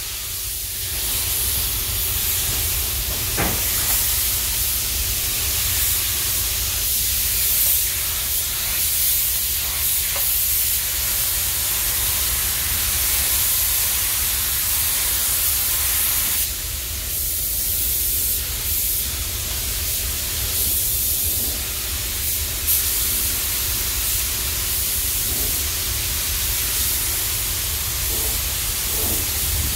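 Gravity-feed air spray gun hissing steadily as it sprays paint, over a steady low rumble. The hiss drops off briefly a couple of times past the middle, as the trigger is eased between passes.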